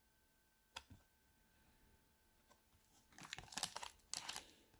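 Faint crinkling and rustling as baseball cards and a foil pack wrapper are handled, with one light click about a second in and most of the crinkling in the second half.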